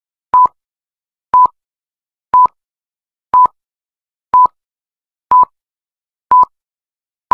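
Film-leader countdown beeps: a short electronic beep at the same pitch once a second, seven times, with silence between.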